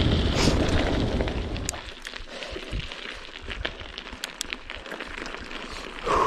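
Wind buffeting the microphone and mountain-bike tyres rolling over loose gravel. The noise drops off sharply about two seconds in as the bike slows, leaving a quieter crunch of gravel and scattered small clicks.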